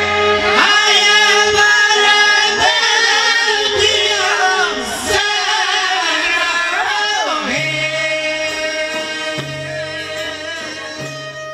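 Live Albanian folk band music: ornamented singing over accordion and plucked strings, settling into long held notes and fading out toward the end.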